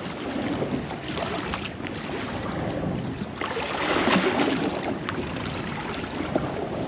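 Wind on the microphone and water lapping against the hull of a small rigid inflatable boat, with no engine running; the wash swells louder about four seconds in.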